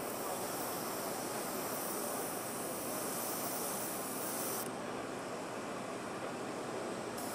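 Airbrush spraying a thin coat of water-based paint with a steady airy hiss, which stops about two-thirds of the way through and starts again near the end. Steady background noise runs underneath.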